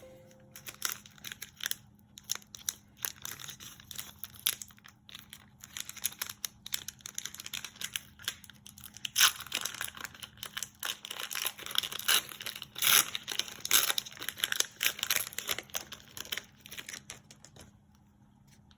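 Foil wrapper of a Pokémon trading-card booster pack being crinkled and torn open: irregular crackling rustles, loudest in the middle, dying down near the end.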